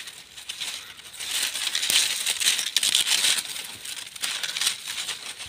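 Dry grass and dead leaves rustling and crackling under a hand working through them to pull up a snare trap, with many small snaps and crackles.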